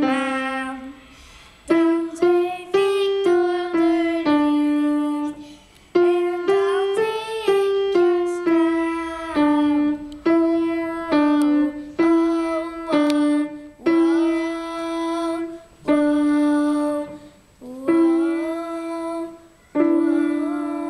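Grand piano playing a slow, simple melody in short phrases of a few notes each, every phrase ringing out and fading before the next one starts about every two seconds.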